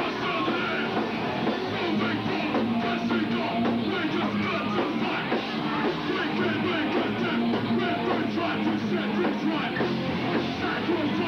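Straight-edge hardcore punk band playing live: loud distorted guitar and drums, heard from within the crowd.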